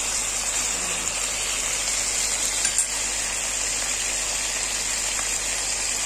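Pork steaks sizzling in soy-onion sauce in a frying pan: a steady high hiss of frying, with one brief click a little before the middle.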